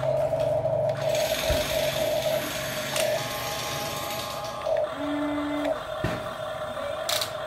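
Small electric motors of a Huina remote-control toy excavator whining steadily as its boom and arm move, with a few sharp clicks and a brief lower-pitched motor tone about five seconds in.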